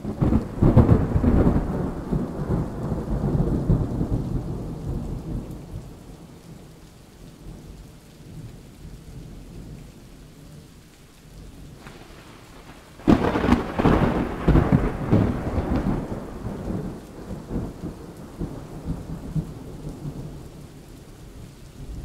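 Two rolls of thunder over steady rain: the first breaks right at the start, the second about 13 seconds in, and each rumbles on and fades over several seconds.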